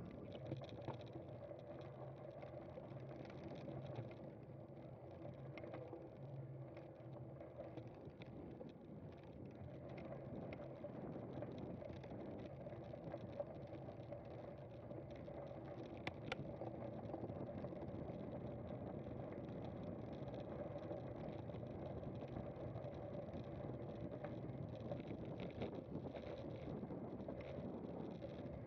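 A cyclocross bicycle in motion: steady rolling and drivetrain noise with scattered small clicks and rattles, and one sharper click about two-thirds of the way through.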